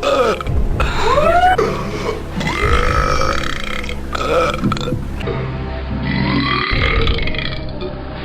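Men belching loudly, a series of long burps one after another, each sliding in pitch. The sound changes abruptly about five seconds in, where one clip gives way to the next.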